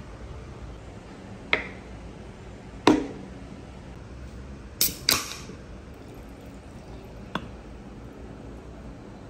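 Two light knocks, then a can of carbonated soda is cracked open: the ring-pull snaps twice in quick succession with a short hiss of escaping gas. A small click follows.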